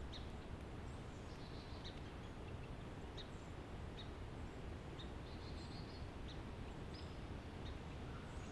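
Faint outdoor ambience: steady low background noise, with small birds giving short, high chirps about once a second.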